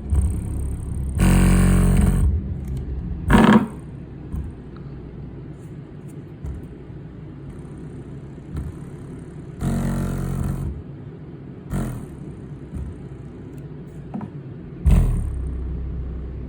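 Bare Infinity BU-1 8-inch woofer playing bass in free air: a steady deep rumble, with a few louder hits that carry a buzzy edge, about a second in, near ten seconds and near fifteen seconds.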